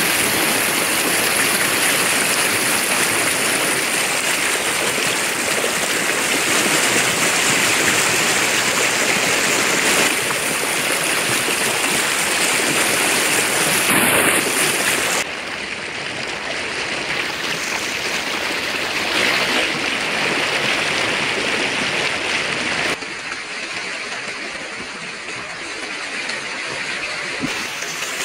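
A river's flowing water, a steady dense rushing that drops abruptly in level twice, about halfway through and again later.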